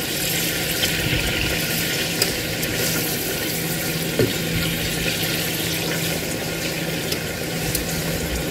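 Marinated pork steak slices sizzling steadily as they sear in hot oil and bubbling marinade in a pot, with a spatula now and then scraping and turning them.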